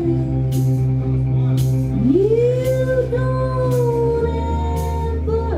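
Indie rock band playing live, loud, with a woman's lead vocal over a sustained bass note and a drum or cymbal hit about once a second. About two seconds in, the voice swoops up into a long held note.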